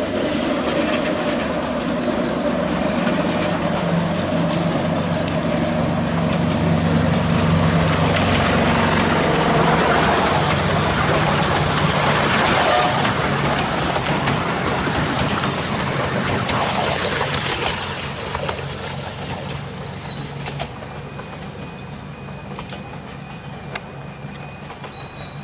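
A 7 1/4 inch gauge miniature railway diesel locomotive passing close with its train of carriages: the engine runs steadily and the wheels rumble on the rails. It is loudest in the middle and fades as the train moves away, with birds chirping near the end.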